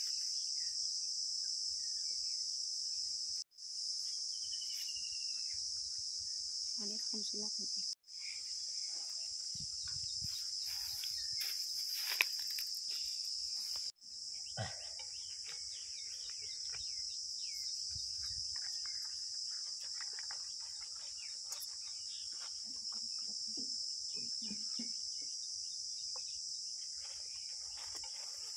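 Steady, high-pitched chirring of field insects in a continuous drone, breaking off for an instant three times.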